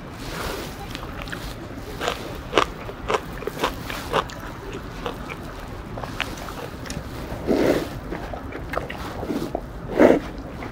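A person eating udon noodles with chopsticks: wet clicking and smacking mouth sounds while chewing, and a couple of louder slurps.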